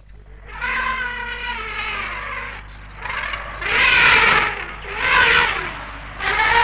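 Elephants trumpeting at a drinking place: one long trumpet of about two seconds, then three shorter, louder blasts, over a steady low tape hum.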